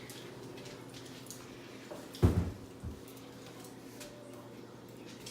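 Quiet handling sounds with one sharp thump about two seconds in and a softer knock just after.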